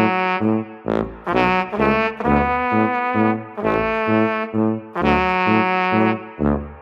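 Background music with brass playing a tune over a bass line that steps between notes.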